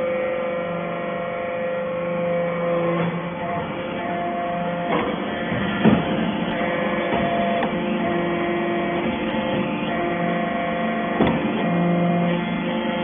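Hydraulic metal-chip baler (briquetting press) running: a steady machine hum whose tones shift every few seconds, with a couple of sharp clanks, the loudest about six seconds in and another near eleven seconds.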